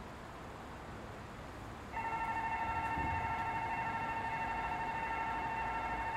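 Railroad level-crossing warning signal switching on about two seconds in: an electronic bell ringing in a fast, steady pulse, the warning that a train is approaching.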